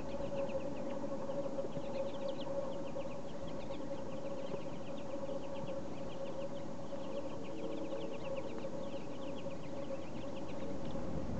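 A feeding flock of pine siskins, with a few American goldfinches mixed in, calling softly in quick, short, high notes that come in clusters throughout. A steady low hum runs underneath.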